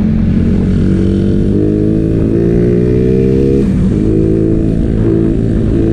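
Motorcycle engine running steadily under way, its pitch holding and shifting a few times, over a constant low rumble.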